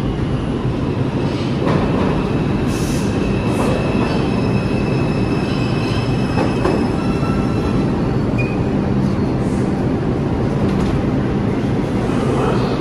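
R142 subway train pulling into an underground station and braking to a stop: a heavy rumble with steady high-pitched wheel squeal from about two to eight seconds in.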